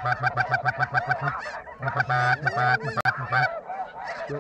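Snow geese calling over the decoys: many high honking calls in quick, even runs of about eight a second, with a short break about a second and a half in, then looser single calls near the end.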